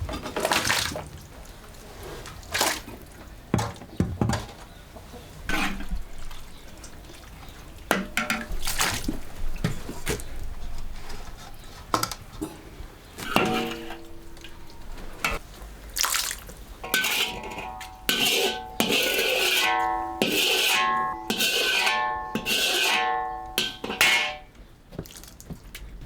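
Kitchen washing-up: water splashing and running, with dishes and utensils knocking and clinking many times, over background music.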